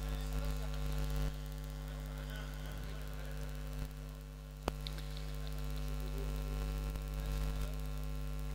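Steady electrical mains hum from a public-address sound system, with one sharp click a little after halfway through.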